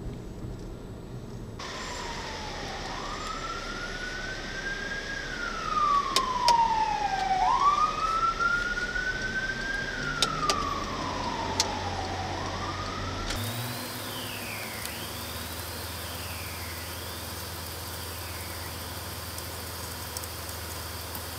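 Fire truck siren wailing, rising and falling slowly about three times, heard from inside a car. It stops abruptly a little past halfway, leaving a car engine idling with fainter falling siren sweeps.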